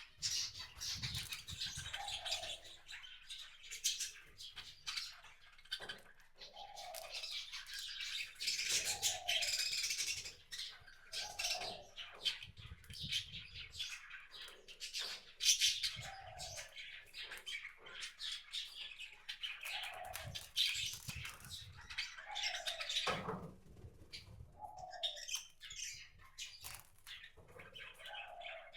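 Small wild birds chirping and twittering almost continuously, with many short clicks among them. A lower call repeats about every two to three seconds.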